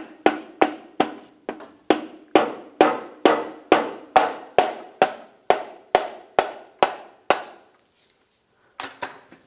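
Mallet tapping the end of a drive shaft to drive it into the transfer case: a steady run of sharp blows, about two a second, that stops a little after seven seconds as the shaft seats. A short rattle follows near the end.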